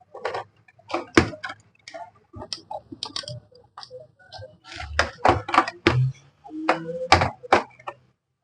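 Irregular clicks, taps and knocks of hands working on the parts of an opened LCD monitor during a main-board swap.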